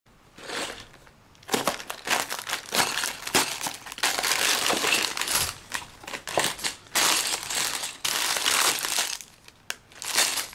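Packaging being crumpled and rustled by hand in a series of crinkling bursts with short pauses between them.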